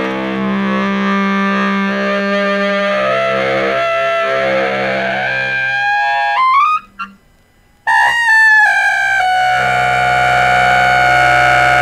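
Saxophone quartet (baritone, tenor and alto saxophones) playing held chords over a low sustained note. About six seconds in the upper lines glide upward and break off into a short pause. The horns then come back in loudly and settle on another long held chord.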